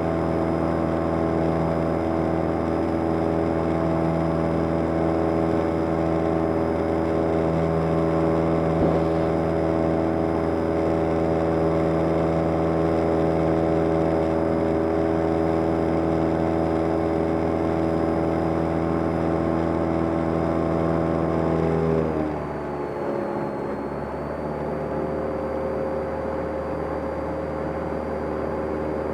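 Cessna 172M's four-cylinder Lycoming O-320 engine and propeller droning steadily in flight. About 22 seconds in the engine note drops in pitch and gets quieter as the RPM comes down, then settles at the lower setting.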